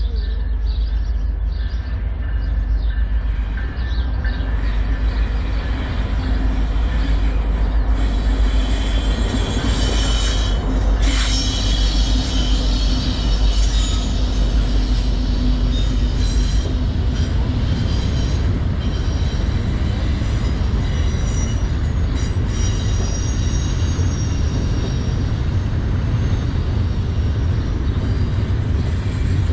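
Diesel locomotives of an intermodal freight train passing close by, a deep rumble with a steady engine drone that fades about halfway through. Double-stack container cars then roll past with a steady rumble, and high-pitched wheel squeal from about a quarter of the way in.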